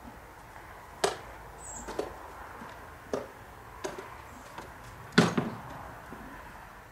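Mucking out horse droppings into a wheelbarrow: a hand tool scraping up manure and knocking it into the barrow, five short knocks about a second apart, the loudest just after five seconds in.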